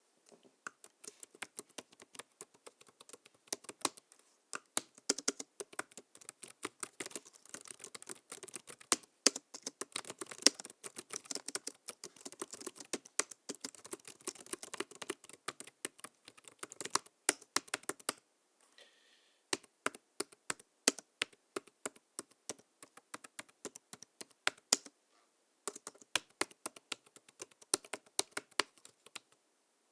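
Typing on a low-travel laptop keyboard: a fast, irregular run of light key clicks, pausing for about a second just past the middle and briefly again later.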